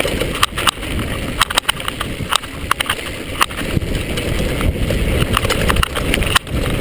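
Mountain bike riding fast over a rough dirt track: a steady low rumble of tyres and wind on the microphone, with frequent sharp rattles and knocks from the bike jolting over bumps.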